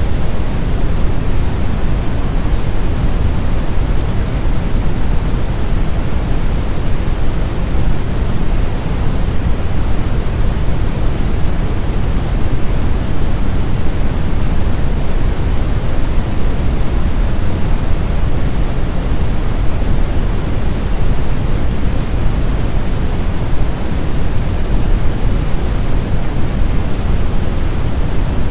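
Steady, deep brown noise: an even, rumbling hiss weighted heavily toward the bass, with no changes or events.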